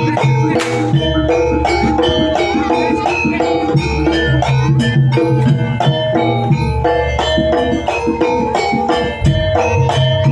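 Live East Javanese jaranan ensemble playing: hand drums beating a steady rhythm under a repeating melody of bronze metallophones and gongs, with deep low gong strokes recurring every couple of seconds.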